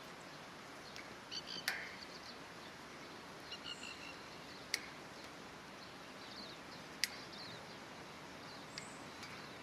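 Steel fence wire clicking sharply three times, spaced a few seconds apart, as it is wrapped into tight tie-off loops. Short bird chirps sound over a steady outdoor background.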